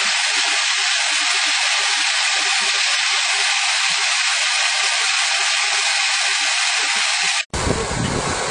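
Steady rushing hiss of shelled corn kernels pouring from a sack into a feed machine's hopper. About seven and a half seconds in, the sound breaks off abruptly and gives way to a deeper, rumbling noise.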